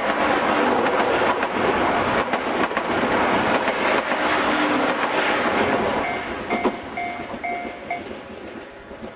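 KiHa 65 diesel railcar train running away over jointed track, its wheels clicking over the rail joints under a steady rumble that fades after about six seconds. Near the end, a few short repeated beeps.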